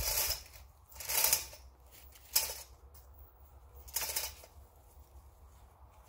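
Hand ratchet being worked in four short strokes, about a second apart, to tighten the line pulling on a tree that is under heavy tension.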